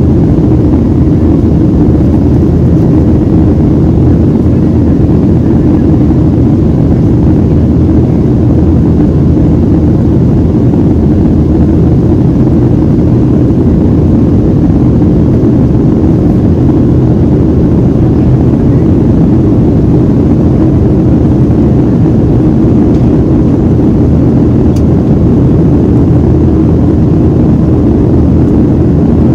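Steady, deep cabin noise inside a Boeing 737-700: the CFM56-7B turbofans and the airflow over the fuselage, heard as an unchanging low rush.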